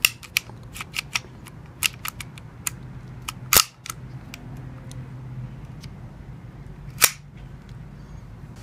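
Metal clicks and clacks of an airsoft Beretta M92A1 CO2 blowback pistol being reassembled by hand as the slide is worked onto the frame. A run of small sharp clicks comes first, then two louder sliding clacks, about three and a half and seven seconds in.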